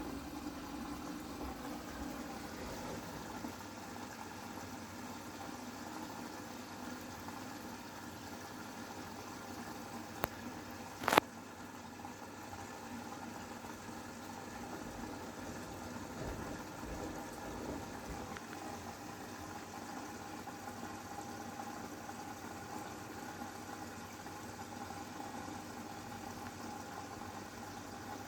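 Siemens WM14VG93 front-loading washing machine cooling its hot wash liquor after an 80-degree boil wash: cold water hisses steadily into the drum over a steady machine hum. A single sharp click sounds about eleven seconds in.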